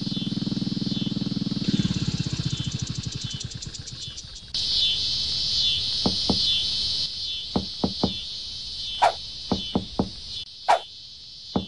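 Steady insect chorus throughout. Over it, a motorcycle engine chugs for the first four seconds, its beat slowing until it dies away. From about six seconds in comes a series of short, hollow knocks on watermelons.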